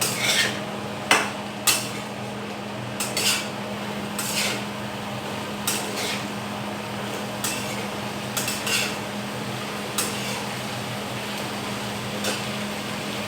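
A cooking spoon stirring diced potatoes, peas and capsicum in a pan, with irregular scrapes and clinks against the pan over a steady low hum.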